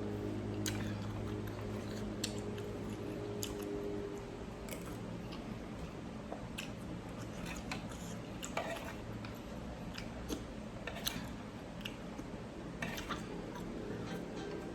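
Someone eating a bowl of noodle soup: scattered light clicks and taps of utensils against the bowl, with chewing. A low steady hum stops about four seconds in.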